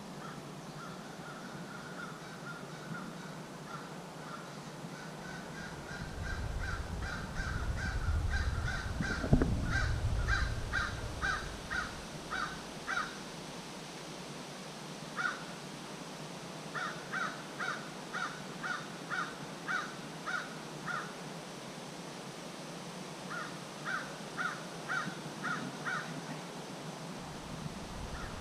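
Crow cawing in long runs of short harsh calls, about two to three a second, starting about ten seconds in and repeating twice more later. A low rumble with a single thump comes before the first run.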